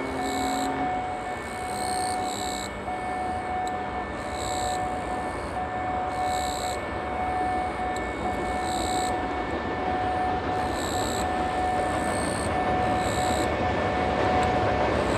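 Freight train hauled by an EH500 electric locomotive crossing a steel truss bridge: a steady rumble with a thin, steady whine running through it, growing louder over the last few seconds as the train approaches.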